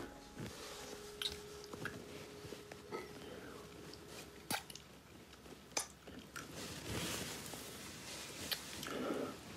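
Two people kissing: wet lip smacks and small mouth clicks every second or so, with soft breathing swelling up near the end.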